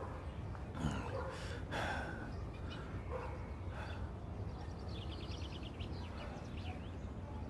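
Quiet outdoor background ambience: a steady low hum with a few faint, indistinct distant sounds, and a short run of rapid high ticks about five seconds in.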